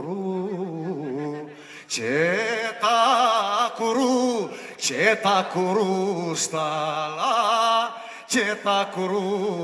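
Male singer holding long, ornamented sung phrases with a wavering, vibrato-laden pitch, in three or four phrases with short breaks between them.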